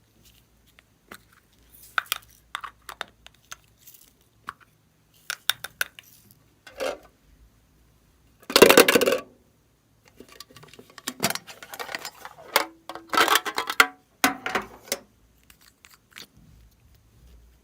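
Slime being pressed and kneaded by hand: irregular bursts of sticky clicking and crackling pops, the loudest about eight and a half seconds in, with another long run of crackles a few seconds later.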